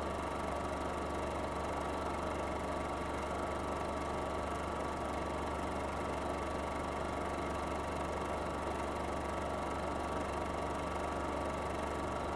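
A steady, unchanging hum with hiss, like a running machine.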